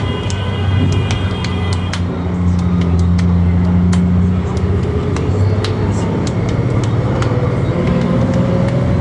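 City bus running, heard from inside the cabin: a steady low engine hum with frequent clicks and rattles from the bus body, and a whine rising in pitch over the last few seconds as the bus picks up speed.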